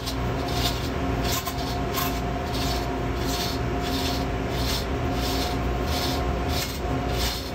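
Hand chain of a 2-ton chain block being pulled hand over hand, a regular rasping rattle about twice a second, as the crosshead pin is lowered onto its bearing. A steady low hum runs underneath.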